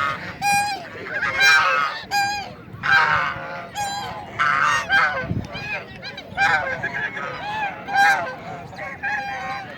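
A flock of domestic white ducks quacking, many short nasal calls overlapping one another without a break.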